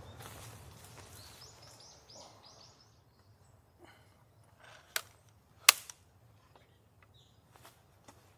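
Two sharp mechanical clicks about two-thirds of a second apart, the second much louder, from a large-format folding press camera being handled and set, followed by a few faint ticks. Before them, a run of short high notes over faint outdoor ambience.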